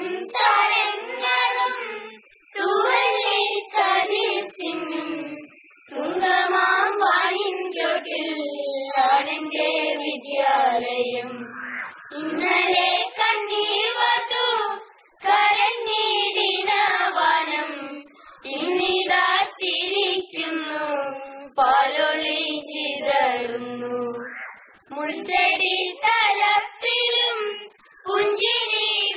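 Children's choir singing a melody together, in phrases a few seconds long with short pauses between them.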